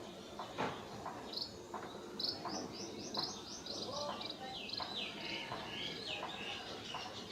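Scale-breasted munias chirping: a run of short, high notes about four a second, then lower, down-sweeping notes near the end, with a few faint knocks in the background.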